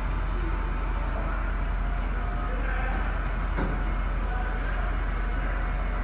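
Steady low mechanical running noise from the service truck as its Venturo ET10KX crane is operated and the boom swings, with a single click about three and a half seconds in.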